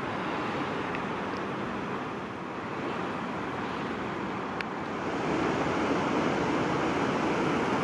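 Steady rush of flowing water, growing louder about five seconds in, with a single sharp click a little past the middle.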